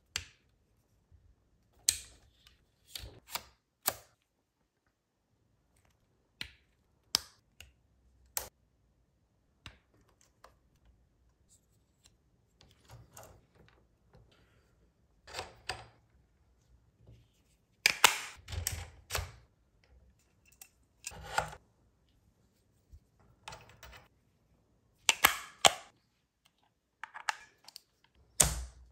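Handling noise of a camera gimbal rig being fitted with accessories: scattered sharp clicks, snaps and light knocks of metal and plastic parts being clamped and tightened, with short gaps of silence between. The loudest and busiest clusters of clicks come past the middle and again near the end.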